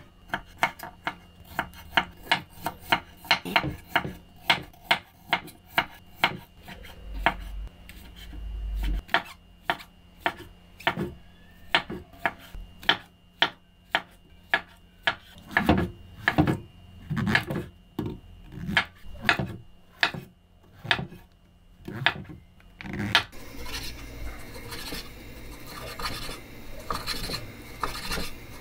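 Knife chopping on a cutting board in steady strokes, roughly two a second. About 23 seconds in, the chopping stops and a continuous scraping, rasping noise takes over.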